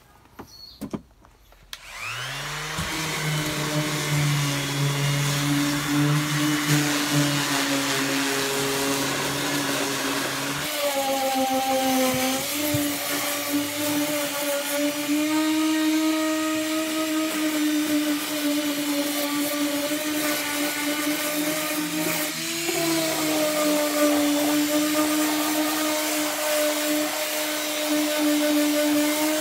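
Ryobi electric sander switched on about two seconds in, spinning up and then running steadily as it sands the paint on a boat's floor. Its tone shifts about a third of the way in and dips briefly about two-thirds in.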